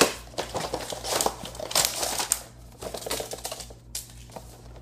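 Cardboard product box being opened by hand: flaps and packaging scraping, rustling and crinkling in irregular bursts, with a sharp snap right at the start.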